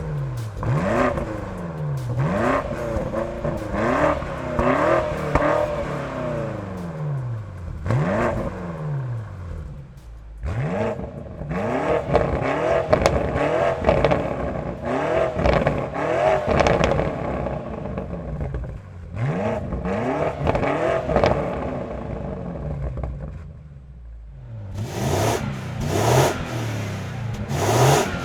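BMW G90 M5's twin-turbo V8 exhaust during stationary revving: repeated throttle blips, the note rising sharply and falling back to idle each time, about a dozen in all. It goes briefly quiet near the end before a few more quick blips.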